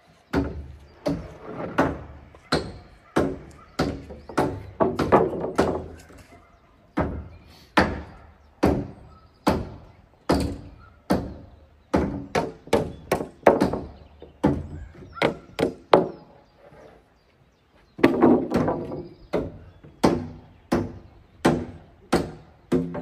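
A tool striking wood in a steady series of sharp blows, a little over one a second, each with a short ringing tail; the blows pause for about two seconds two-thirds of the way through, then carry on.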